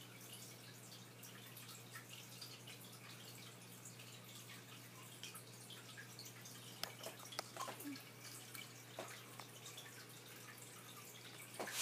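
Aquarium filter running: faint trickling and dripping water over a steady low electrical hum, with scattered light ticks.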